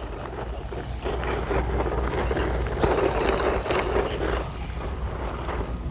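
HBX 903 12th-scale RC monster truck with a brushed 390-size motor, driving over rough ground. Its running grows louder about three seconds in and eases off again a second and a half later.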